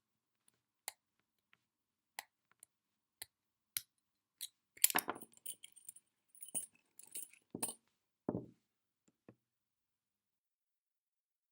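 Metal lock picks and a lock being handled after an opening: a few light clicks, then a burst of jingling metallic clinks, and one dull knock about eight seconds in.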